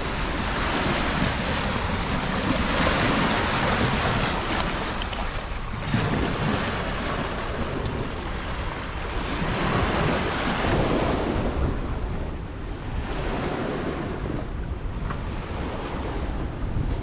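River water lapping and washing against a rocky shore, with wind buffeting the microphone: a steady rush that swells and eases, turning duller about eleven seconds in.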